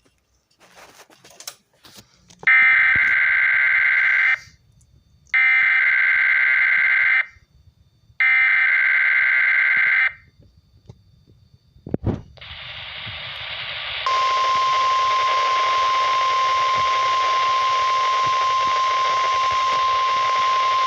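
Emergency Alert System SAME header sent three times: three loud two-second bursts of warbling digital data tones, about a second apart. Then a radio hiss comes up, and a steady single-pitched NOAA Weather Radio warning alarm tone sounds over it, as part of a Required Weekly Test of the alert tones.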